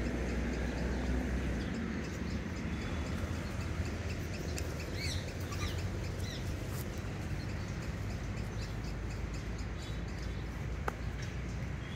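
Outdoor ambience: a steady low rumble with a few short bird chirps about five seconds in, and a single sharp click near the end.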